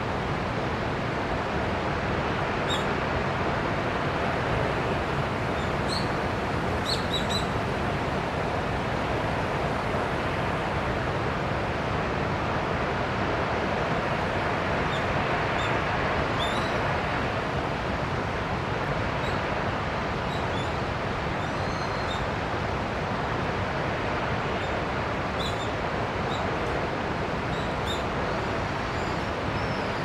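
Senpiro Falls, a waterfall pouring down a granite cliff: a steady rush of falling water, with a few faint bird chirps now and then.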